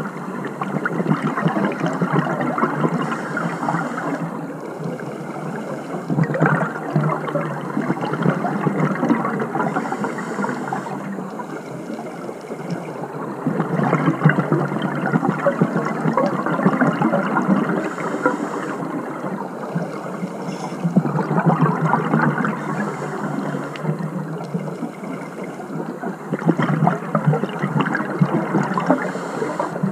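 Scuba diver's regulator breathing underwater: exhaled bubbles gurgling and crackling, swelling into louder bursts every six to eight seconds.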